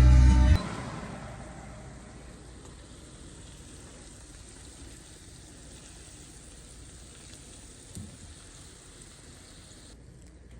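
Singing breaks off just after the start and fades out. Then there is a faint, even hiss, with one soft knock about eight seconds in.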